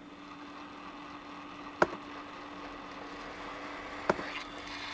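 Two short sharp clicks about two seconds apart as a model railroad turnout is thrown from the computer panel, over a steady faint hum.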